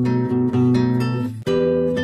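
Background music of strummed acoustic guitar chords, with a brief break and a change of chord about one and a half seconds in.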